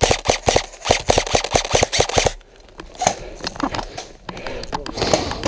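Airsoft guns firing rapid bursts of sharp shots for about two seconds, then a few scattered single shots.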